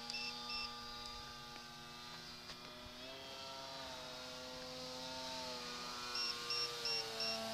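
Electric motor and propeller of a small homemade RC plane running, a steady whine of several tones that steps up in pitch about three seconds in with more throttle, then eases slowly down and grows louder as it comes closer. Runs of quick, evenly spaced high chirps sound near the start and again near the end.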